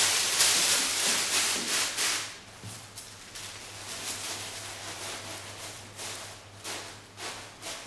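Acid-free tissue paper rustling and crinkling as it is handled and scrunched into a costume's folds. The rustling is loudest in the first two seconds, then continues as softer, on-and-off crinkles.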